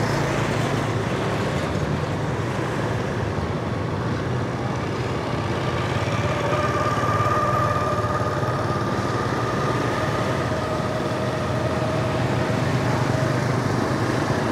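Motorbike running steadily while riding along a street, with road noise; a faint steady whine comes in about halfway through.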